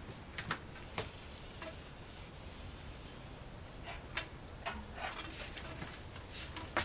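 Quiet room tone broken by a handful of light, irregularly spaced clicks and taps.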